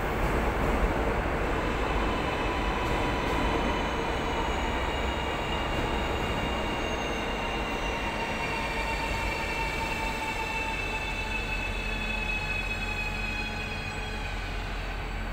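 Train hauled by a Renfe class 333 diesel locomotive approaching slowly, a steady rumble with faint high tones that drift slowly lower.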